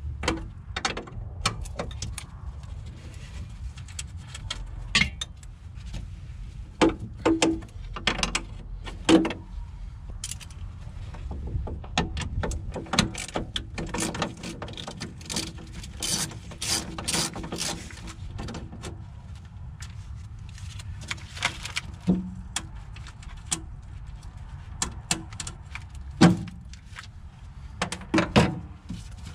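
Metal hand tools clinking and tapping against steel fittings, an irregular run of sharp clicks and clanks with a few louder knocks.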